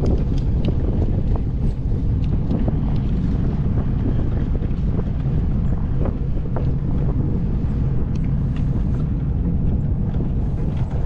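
Wind buffeting the microphone aboard a moving fishing boat: a loud, steady low rumble with a few faint clicks scattered through it.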